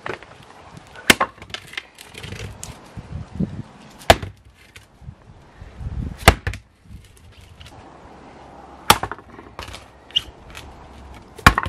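Machete chopping into the husk of a mature coconut: five sharp chops, roughly two and a half seconds apart, with lighter knocks between.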